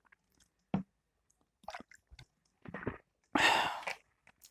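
Close-up chewing and small mouth sounds of someone eating dry buffalo meat sukuti, with scattered soft clicks and a louder rush of breathy noise about three and a half seconds in.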